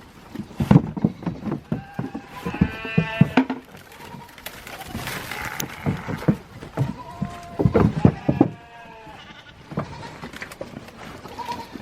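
Sheep bleating: two long wavering bleats, one a few seconds in and one past the middle, and a short one near the end. Scattered knocks and thumps run alongside.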